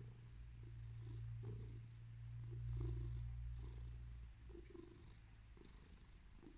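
Domestic cat purring at close range, a low steady purr that swells to its loudest about three seconds in and eases off after about four and a half seconds, as the cat dozes off contentedly.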